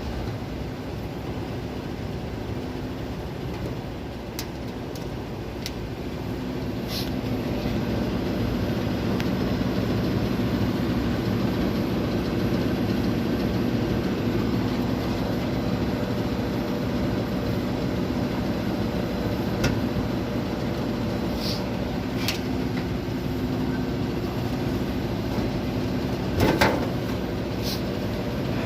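Sharp clicks and knocks of an air conditioner's outdoor-unit cover being unfastened and handled, with the loudest knock near the end. Under them runs a steady low mechanical hum.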